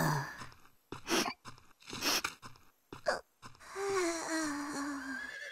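Cartoon pig's voice in distress: a gasp, then three short breathy sobs about a second apart, then a long whimper that slowly falls in pitch.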